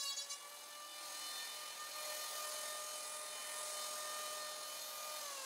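Electric hand planer: a brief cut along the wooden door's bottom edge at the start, then the motor runs free with a steady whine. Near the end the whine falls in pitch as the planer is switched off and its cutter drum spins down.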